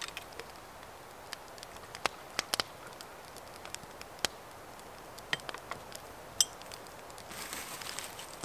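Small wood fire crackling, with scattered sharp pops and clicks. Beer is poured from a glass bottle into a cup, with a short hiss near the end.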